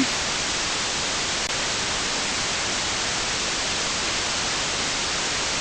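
Steady hiss of unsquelched FM receiver static from an RTL-SDR software-defined radio receiver tuned to 147.120 MHz in narrowband FM: the sound of an idle channel with nobody transmitting.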